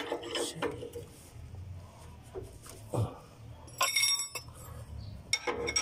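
Metal clinks and knocks from hand tools and steel parts being handled while working on the Mitsubishi L300's steering idler arm. The loudest clinks come about 4 seconds in and near the end, each ringing briefly.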